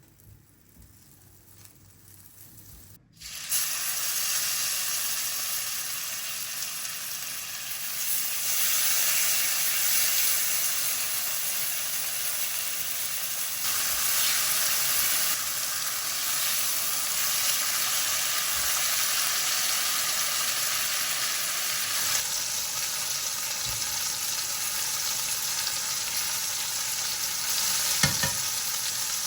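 Food sizzling and frying in a hot pan, starting suddenly about three seconds in and then running steadily, with a brief knock near the end.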